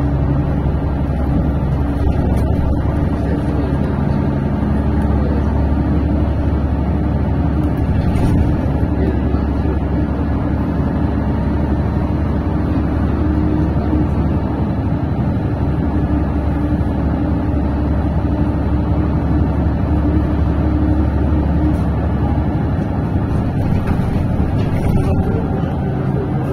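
Cabin noise of a GolAZ AKA-5225 city bus under way: a steady drone of diesel engine and road noise, with the engine note shifting up and down a few times as the bus changes speed.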